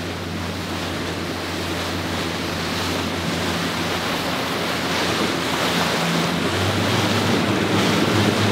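Panga skiff running fast through ocean swells: water rushes and sprays off the hull over the steady drone of the outboard motor, with wind on the microphone. The sound grows slowly louder.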